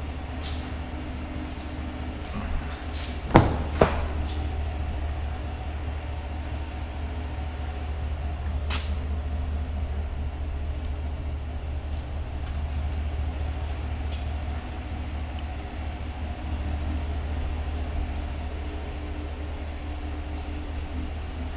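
A steady low rumble runs throughout. Two sharp knocks come about three and a half seconds in, half a second apart, and a lighter click follows near nine seconds: the sounds of doors and seats being handled in a pickup's cab.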